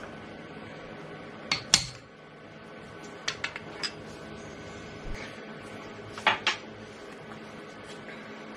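Sharp metal clinks and taps from a cutter change on a milling machine spindle, as a 16 mm carbide ball-nose end mill is fitted: about seven clicks in three small groups, over a steady low hum.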